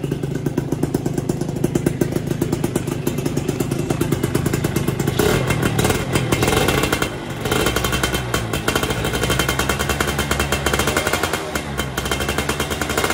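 Yamaha F1ZR 110 cc two-stroke single-cylinder engine running with rapid exhaust pulses, revved up for about two seconds about five seconds in, then settling back to a lower speed. The revving tests the carburettor's jet-needle setting: if it does not flood at mid-to-high rpm, the mixture is still on the lean side.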